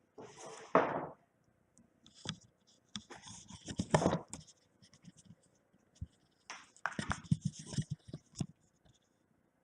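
Remington Quiet-Riter manual typewriter being worked. It gives irregular bursts of mechanical clicks and clatter, four of them, with the loudest about one and four seconds in, rather than a steady typing rhythm.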